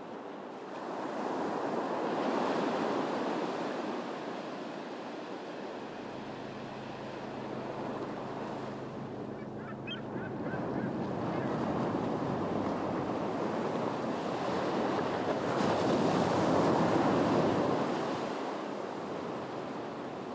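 Ocean surf: waves breaking and washing over rocks and sand, swelling twice and ebbing between. A faint low hum sits under the middle, and a few short high calls come about ten seconds in.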